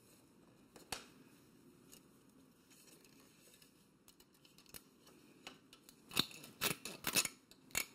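A plastic zip tie being cinched tight, holding the chain guide up to the chain guard: one click about a second in, then several quick ratcheting pulls near the end.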